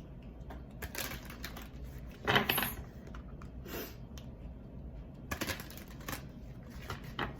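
Tarot cards being shuffled and handled: a series of short papery flicks and rustles, the loudest about two and a half seconds in.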